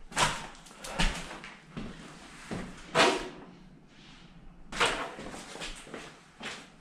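A series of short, irregular scraping and knocking noises, roughly one a second.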